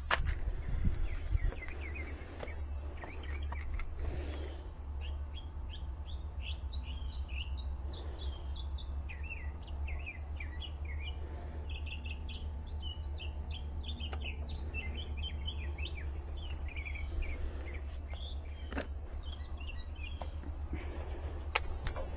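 Small birds chirping in quick, high twittering calls over a steady low hum, with a few scattered clicks.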